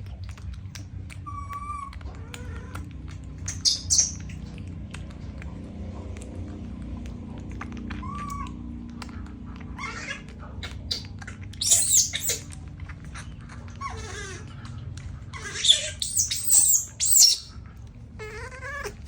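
A baby monkey giving short, high-pitched squealing cries: one about four seconds in, another about twelve seconds in, and several close together near the end, over a steady low hum.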